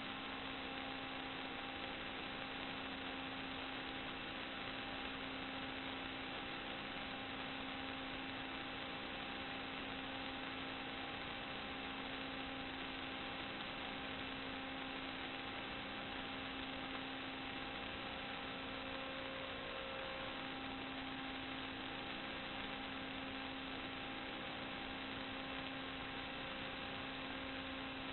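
Steady electrical hum with several fixed tones over an even hiss, unchanging throughout.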